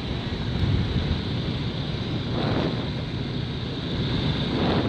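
Wind buffeting the microphone: a steady, rough rumble of low noise.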